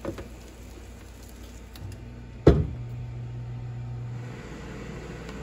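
Lid of a Ninja Foodi Grill shut with a single loud thud about halfway through, with a low hum from the running grill.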